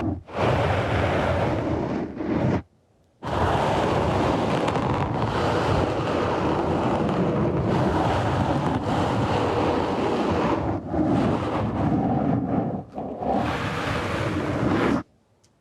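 A loud rushing noise close on the microphone, like wind on the mic. It breaks off briefly about three seconds in and stops suddenly near the end.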